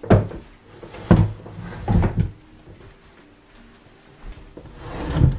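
An old wooden school desk knocking dully against the floor and wall as it is pushed into place: three knocks about a second apart, then another near the end.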